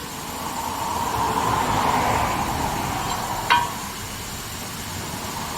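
A steady hiss runs throughout, and about three and a half seconds in a loose metal part clinks once with a short ring.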